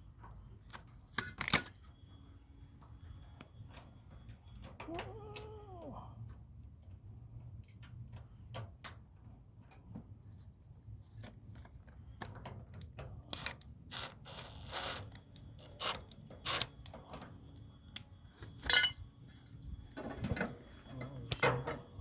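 Intermittent clicks, knocks and metal clinks of hand tools and fittings being handled during work on a mini-split condenser, with a brief rising-and-falling squeak or hum about five seconds in.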